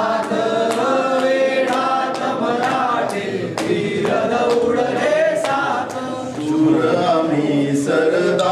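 A mixed group of young men and women singing a song together unaccompanied, in unison. Near the end lower men's voices carry the singing.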